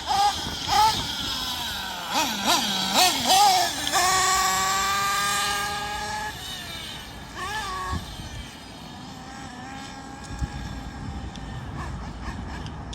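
Nitro engine of a Kyosho Inferno NEO ST 3.0 RC truggy revving up and down, then held at high revs for about two seconds before dropping away about six seconds in. After one more short rev it runs fainter and steadier.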